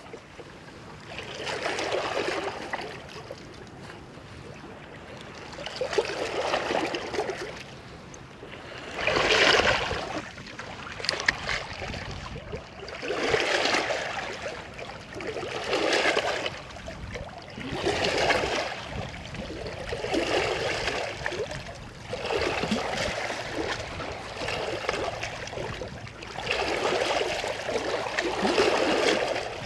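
Small sea waves lapping and washing over rocks at the water's edge, swelling and fading every few seconds.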